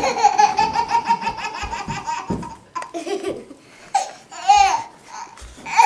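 Young child laughing hard in a long run of rapid, evenly pitched giggles, breaking off about two seconds in. A short high squeal follows, and the giggling starts up again near the end.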